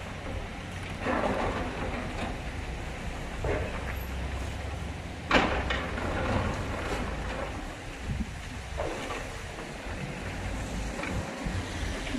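High-reach demolition excavator running with a steady low engine rumble while its crusher jaws break into the concrete walls, with intermittent crunches and cracks, the sharpest about five seconds in.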